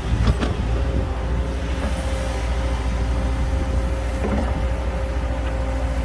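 Heavy diesel engine of earthmoving machinery running steadily under load, with a few short knocks near the start and another about four seconds in.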